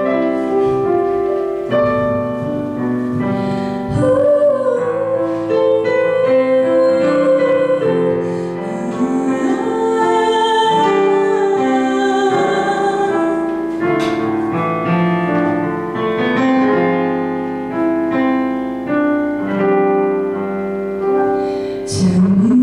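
A young woman singing a slow song into a microphone, accompanied on a digital piano. She holds long notes with a clear vibrato.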